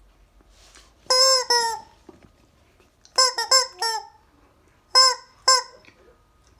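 Rubber screaming chicken toy squeezed by hand, giving out short, shrill squawks that drop in pitch at the end. There are two about a second in, a quick run of four around three seconds in, and two more around five seconds in.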